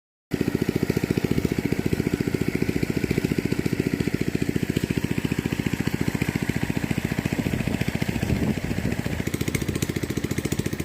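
A small engine running steadily with a rapid, even chug of many beats a second, starting abruptly just after the beginning.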